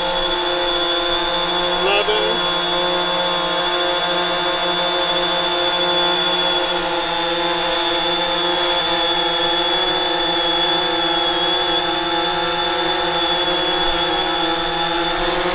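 Quadcopter drone hovering, its motors and propellers making a steady hum with a thin high tone on top that holds constant in pitch and level.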